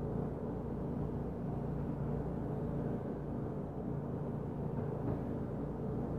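Steady low rumble and hum, even in level, with no distinct footfalls or thumps standing out.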